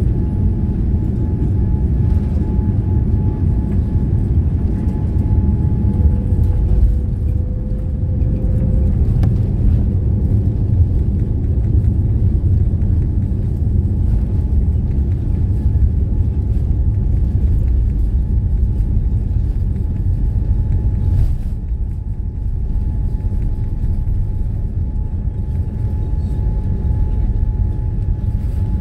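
Boeing 787-9 heard from inside the cabin as it touches down and rolls out on the runway: a loud steady rumble of wheels and engines that swells about six seconds in and eases a little after about twenty seconds as the jet slows.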